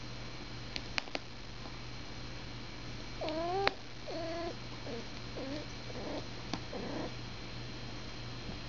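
A domestic cat meowing: a run of short calls, the first and loudest a rising one about three seconds in, followed by several quieter ones. A few sharp clicks come around the first second and once more later.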